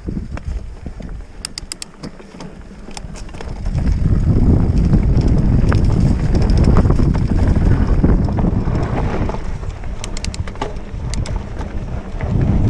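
Wind on a mountain biker's action-camera microphone, growing much louder about four seconds in as the bike picks up speed. Scattered sharp clicks and rattles from the bike over the trail.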